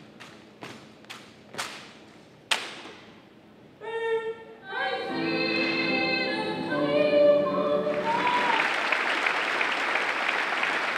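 Drill team's marching steps, sharp heel strikes on a wooden gym floor about twice a second, ending in a loud stomp. Then a few pitched notes and a choir singing briefly, followed by applause from the crowd.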